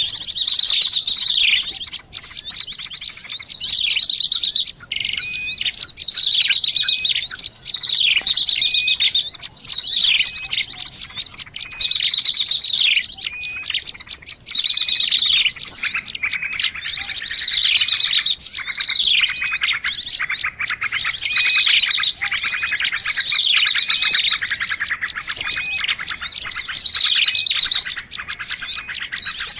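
Dense chirping and twittering of small songbirds, quick high notes and short downward-sweeping calls repeating every second or two without a break: a bird-lure call recording meant to draw small birds in.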